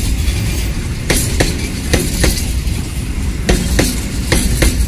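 Loaded container freight wagons rolling past close by: a steady low rumble of the train, broken by pairs of sharp wheel clacks as each wagon's bogies cross the rail joints, four pairs in all.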